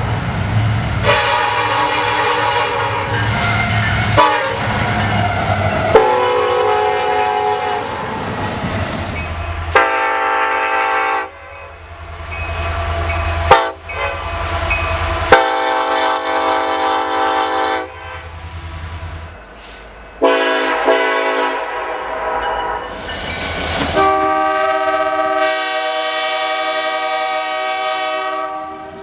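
Nathan Airchime locomotive air horns sounding long and short blasts, each a multi-note chord. The horn changes abruptly every few seconds, so several different horns are heard one after another. A low locomotive rumble sits under some of them.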